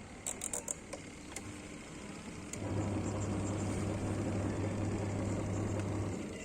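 A few sharp clicks, then a twin-tub washing machine's electric motor starts about two and a half seconds in, running with a steady hum and churning for about three and a half seconds before it stops.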